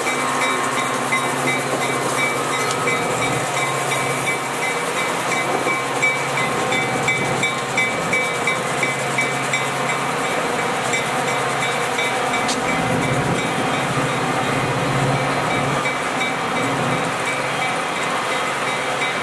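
Union Pacific diesel switcher locomotive moving slowly, hauling Metra bi-level gallery coaches: a steady engine drone with a high, steady whine, and wheels clicking over rail joints and switches several times near the middle.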